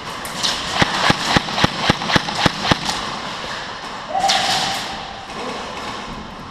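Airsoft gun firing a quick string of about eight sharp shots, roughly four a second, followed about four seconds in by a short rushing burst.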